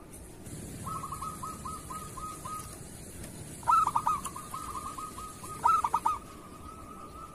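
Zebra dove (perkutut) cooing: a quick run of soft, even coo notes, broken by two louder clusters of accented coos about four and six seconds in.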